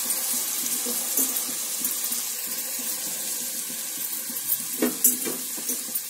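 Steady sizzling hiss of boiled mutton and fresh tender tamarind leaves frying in hot oil with onions in a pot, slowly dying down as the added ingredients cool the oil. A few light knocks come about five seconds in.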